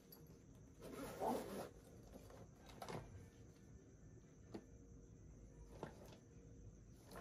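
Faint handling noise of a Phillips screwdriver working on a laptop's battery screws: a short rasping scrape about a second in, then a few light clicks.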